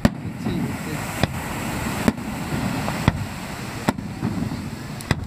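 Aerial firework shells bursting: a series of sharp bangs, about seven, roughly one a second and irregularly spaced, with two close together near the end, over a steady rushing background.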